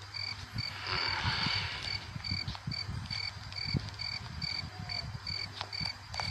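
Crickets chirping in a steady, even rhythm, about two and a half chirps a second: night ambience. A brief hiss comes about a second in.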